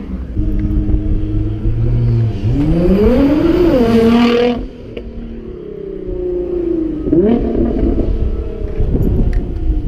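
Nissan GT-R engine accelerating hard past at close range: the note climbs steeply, dips briefly at a gearshift, climbs again and then falls away abruptly. A second car revs up briefly near the end.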